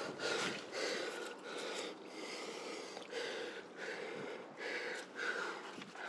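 A climber breathing hard and fast, a string of loud breaths less than a second apart, each a puff of air with a short gap between.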